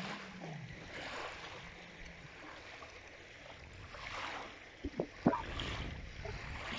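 Small waves lapping at the water's edge, swelling and easing, with a couple of short sharp knocks about five seconds in.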